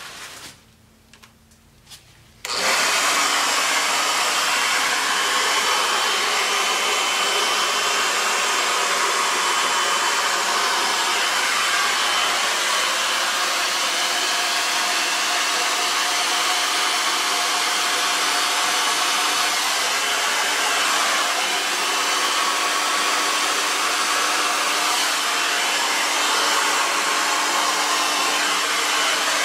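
Handheld hair dryer switched on about two and a half seconds in, then running steadily with an even rushing blow as it pushes wet paint across a table top.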